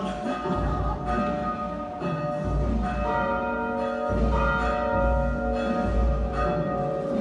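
Church bells tolling the requiem knell for the dead. Several bell tones ring on over one another, with new strikes coming in every second or so.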